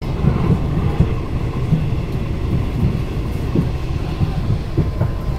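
Passenger train running on the rails: a steady low rumble with irregular knocks and clatter from the wheels.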